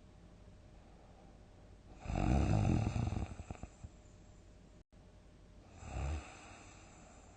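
A person snoring in deep sleep: one loud, long snore about two seconds in that breaks up into separate pulses as it fades, then a shorter, quieter snore about six seconds in.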